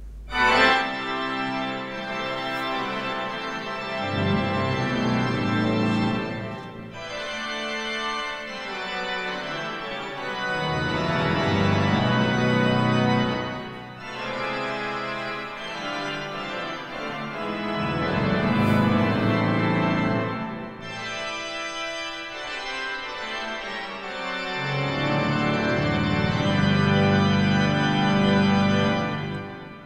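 Church pipe organ playing slow, sustained chords in phrases several seconds long.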